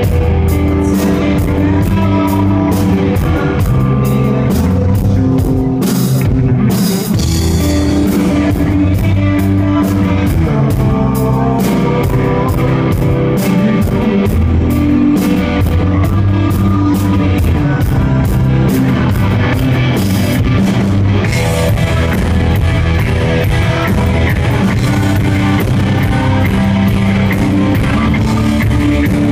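Rock band playing live: electric guitars, bass and drum kit, with a short break in the cymbals about six seconds in.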